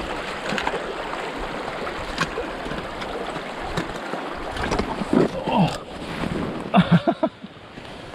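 Stream water rushing and splashing as a walker wades a knee-deep river crossing in mountaineering boots. Between about five and seven seconds in come loud splashes and short cries as he slips and falls in the water.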